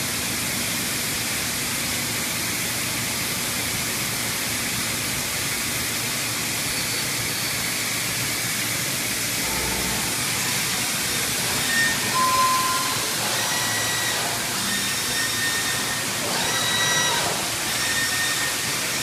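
Steady hiss and wash of high-pressure coolant spraying inside a DMG DMU85 five-axis machining center during coolant-through deep-hole drilling. In the second half several short whines come over the hiss as the machine's axes move the work to a new position.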